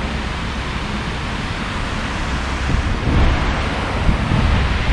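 Wind buffeting the microphone, a low unsteady rumble that gusts a little harder about three seconds in, over a steady rush of river water spilling across a low weir.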